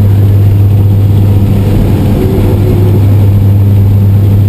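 Jump plane's engine running steadily, heard inside the cabin as a loud, even low hum with rushing noise over it.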